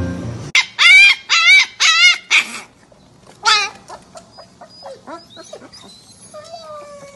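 Husky puppies whining and yowling: five loud wavering cries in quick succession, another about three and a half seconds in, then softer short whimpers and yips.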